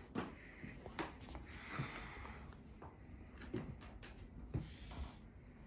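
Faint close-up sounds of a dog sniffing at a rabbit, with scattered soft knocks and rustles about a second apart.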